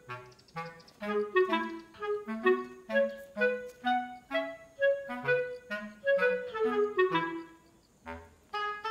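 Background music: a light melody of short, separate notes over a bass line, pausing briefly about eight seconds in.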